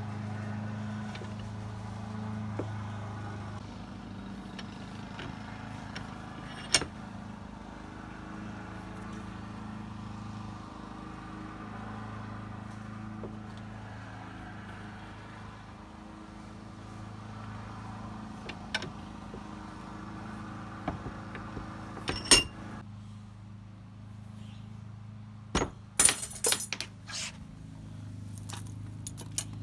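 Bench vise pressing a stripped handle shaft out of a truck door mechanism through a socket, with occasional sharp metal clicks, then a quick run of loud clicks and clatter near the end as the shaft pops out. A steady low hum runs underneath.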